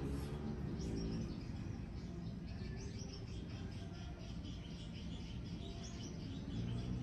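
Birds chirping in the background, a series of short high calls repeated throughout, over a steady low rumble.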